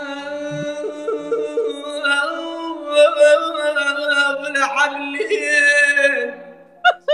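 A young male singer's high voice holding long notes in Arabic with wavering vocal ornaments; the last note fades out near the end.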